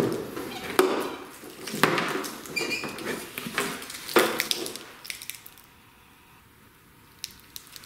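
Handling noise from wiring harnesses for a Terminator X engine computer being moved about by hand. Braided loom and plastic bags rustle, and several sharp knocks of plastic connectors come in the first half. It goes quiet for the last couple of seconds.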